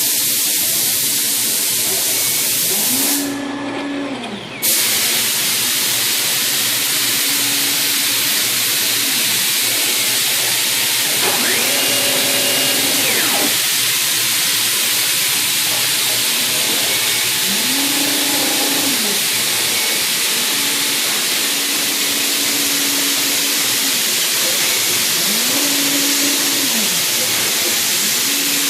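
ShopBot PRT Alpha CNC router running: a loud steady hiss, with the stepper motors' whine rising, holding and falling in pitch again and again as the axes speed up and slow down, once climbing much higher. The hiss stops for about a second and a half about three seconds in, then starts again.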